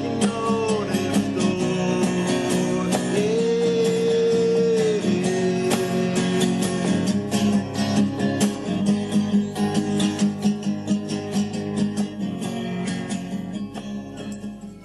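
Street busker playing a strummed acoustic guitar in a steady rhythm, with a long held melody note over the strumming a few seconds in.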